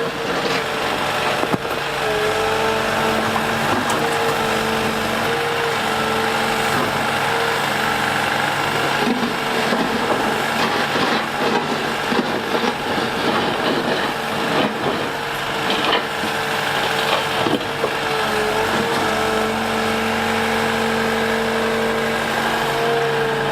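Liebherr A 910 compact wheel excavator's diesel engine and hydraulics running steadily, the pitch sagging briefly now and then as the machine works. Scattered knocks and scraping come from the bucket on broken asphalt.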